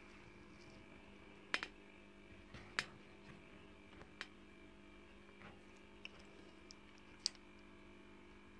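Faint steady electrical hum, with several sharp clicks scattered through it.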